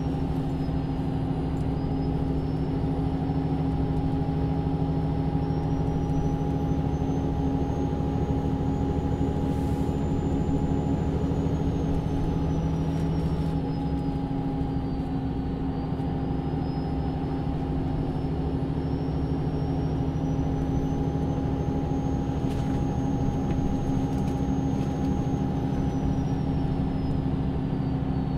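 Inside a MAN Lion's City NÜ 323 city bus, its diesel engine running steadily. A thin high whine slowly rises and falls in pitch twice.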